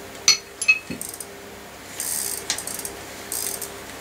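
Metal hand tools clinking and rattling as they are handled: two sharp clinks near the start, then two short bursts of rattling about halfway through and near the end.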